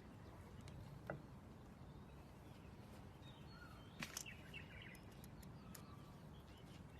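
Near silence with faint birds chirping in the background and two light clicks, one about a second in and one about four seconds in.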